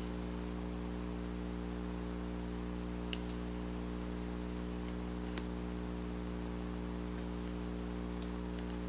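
Steady electrical hum, with a few faint clicks about three, five and eight seconds in as a razor blade is worked through quarter-inch EVA foam.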